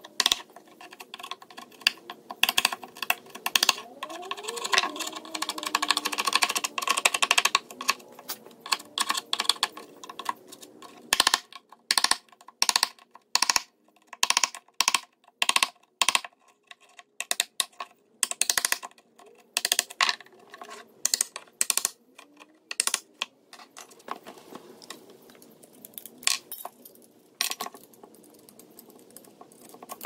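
Wood chisel pushed by hand into the edge of a particleboard panel, cutting and prying out chips: an irregular run of sharp clicks and crunches with short pauses between strokes.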